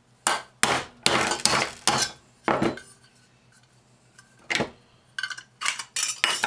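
Hammer striking the thin aluminum and tin parts of a hot air popcorn popper to work them loose: about six sharp blows, a pause of about two seconds, then five more quick blows.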